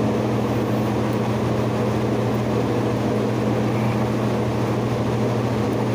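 A steady mechanical hum: a constant low drone with a second tone above it and a haze of noise, unchanging throughout.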